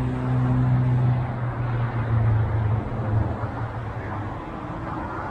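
Road traffic: a vehicle's engine hum with tyre noise that fades away after about three seconds.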